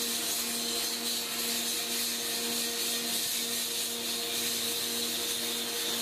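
Power grinder running steadily, a constant motor hum under a continuous grinding hiss.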